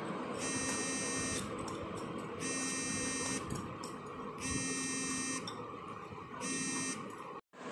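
An electronic buzzer beeping four times, once every two seconds: each beep is a steady, high buzzing tone about a second long, and the last one is cut short.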